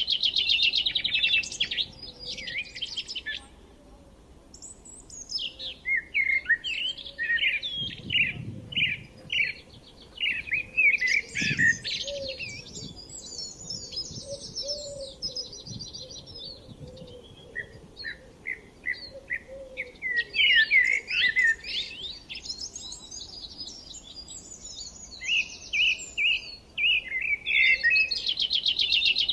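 Several songbirds chirping and singing in overlapping quick chirps and trills, with a short lull about four seconds in.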